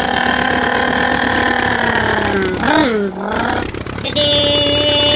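Engine-like drone with a clear pitch that sinks slowly, dips and swoops back up about three seconds in, then holds a steady, higher note near the end.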